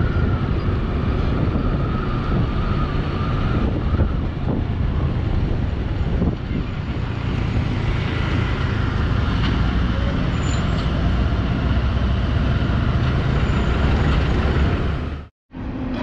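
Steady low rumble of road vehicle noise and wind while travelling along the road, with a dump truck running just ahead. A faint whine sits on top for the first few seconds, and the sound drops out briefly near the end.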